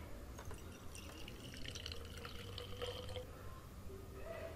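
Yeast solution poured from a glass into a glass conical flask: a faint trickle and drip of liquid.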